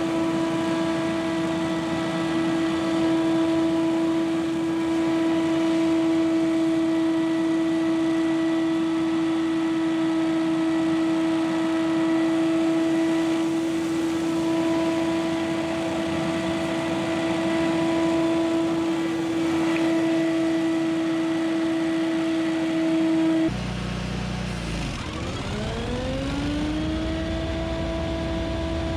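Scag Windstorm stand-on leaf blower running flat out, its engine and fan giving a loud, steady high whine. Near the end the sound changes abruptly, and the whine climbs back up to the same steady pitch as the blower revs up again.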